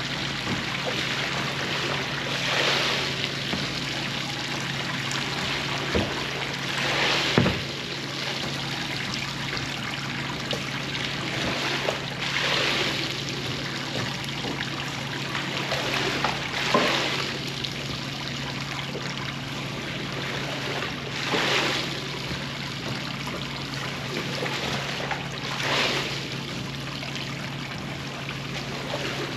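Water running and trickling as a rug is washed, over a steady machine hum, with a louder swishing surge about every four to five seconds.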